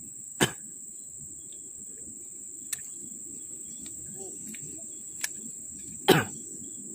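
A steady, high-pitched drone of crickets or similar insects over a low, even rumble. Sharp knocks and clicks from fishing gear being handled come through it: one about half a second in, two faint ones in the middle, and the loudest a second before the end.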